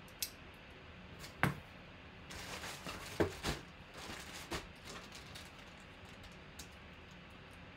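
Handling noise as a cardboard box is opened and a jersey in a clear plastic zip-top bag is taken out: a few sharp knocks and taps, the loudest about one and a half seconds in, with plastic crinkling in the middle.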